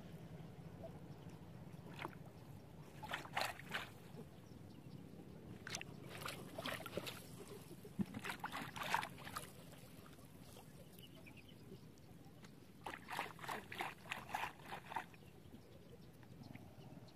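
Water splashing and sloshing in four short bursts of quick splashes, over a steady low background noise.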